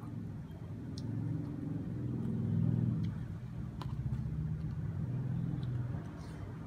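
A low motor-like hum, possibly from an engine, that swells for a couple of seconds and then settles, with a few light clicks, which the stills suggest come from a plastic spoon against a takeaway box.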